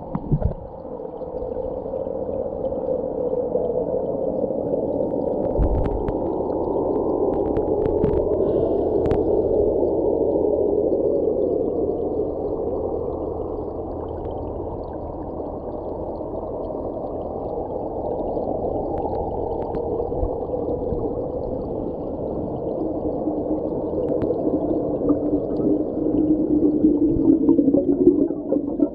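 Muffled underwater sound of volcanic gas bubbling up from vents in the sandy seabed of a shallow hot spring, heard through a submerged camera: a steady, dull bubbling with a few faint clicks.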